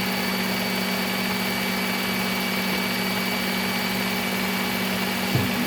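Electric belt sharpener (BUCKTOOL belt grinder) running steadily: an even motor hum with a fixed whine and belt hiss.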